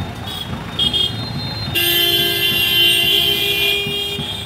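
Vehicle horns honking in street traffic: a short toot about a second in, then one long blast of about two and a half seconds, over traffic noise.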